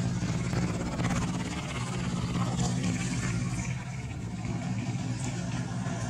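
A motor running steadily: a continuous low hum.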